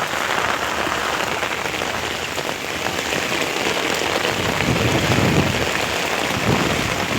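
Steady rain falling hard, a continuous even hiss of drops with no let-up.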